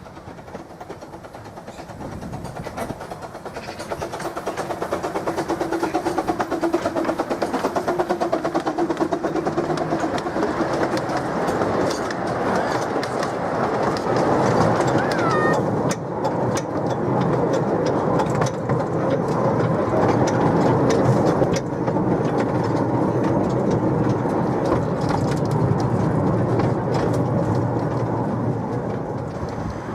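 Miniature railway train running past, growing louder over the first several seconds, then holding steady and easing off near the end. The wheels click over the rail joints throughout, and there is a brief squeal about halfway.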